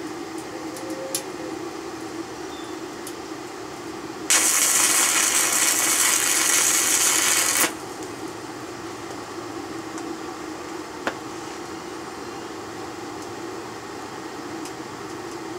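Stick-welding arc crackling and hissing for about three seconds, starting and stopping abruptly, over a steady low hum.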